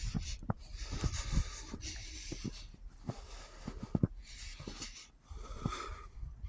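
A person walking through fresh snow: noisy crunching swishes come about once every second or so, close to the microphone, with short low knocks between them.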